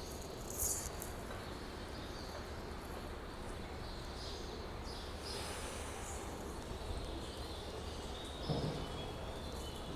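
Steady background noise on an open rail platform with no train present, with a few faint high chirps. A short rustle comes just after the start and a brief low thump about eight and a half seconds in.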